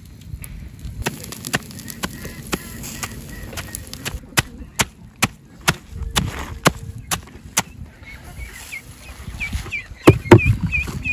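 Sharp, evenly spaced knife strikes chopping banana stem, about two a second, for several seconds. Then poultry call repeatedly, several short calls a second, with a heavy thump about ten seconds in.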